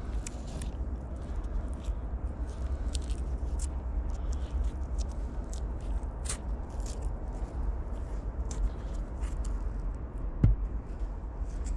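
Old tape and wire insulation on an ATV wiring harness splice crackling as they are picked and peeled apart by hand, in many small irregular crackles, with one sharp click near the end. A low steady hum runs underneath.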